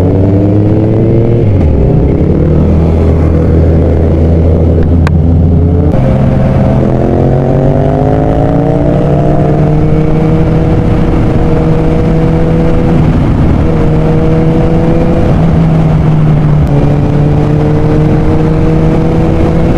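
Kawasaki Z1000 inline-four engine under way, with wind rushing past the rider. The note shifts abruptly about six seconds in, climbs for a few seconds as the bike pulls, then settles into steady running with a few brief dips.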